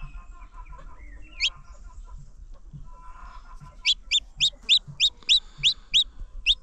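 Newly hatched chick peeping: one high peep about a second and a half in, then a fast run of about ten loud, high peeps near the end, with softer, lower calls underneath.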